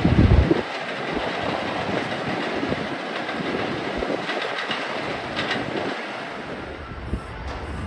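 New York City subway train running on an elevated steel track: steady rail noise, loudest in the first half second, with a few faint high squeals or clicks around four to five seconds in.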